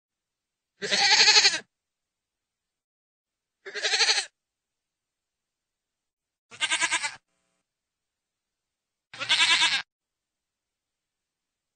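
Goat bleating four times, each call under a second long with a quavering tone, spaced a couple of seconds apart.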